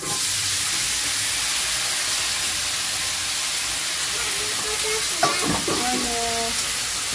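Sliced mushrooms hitting hot oil in a pan on a gas stove, setting off a loud, steady sizzle that starts suddenly and keeps going as they fry.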